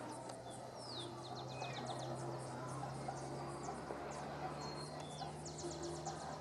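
Small birds chirping outdoors: short downward-sliding whistles and quick high trills, over a steady low hum.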